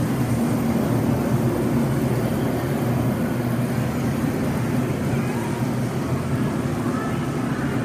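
Steady rush of an indoor artificial rain shower pouring onto rocks and into a pool, with a low rumble underneath.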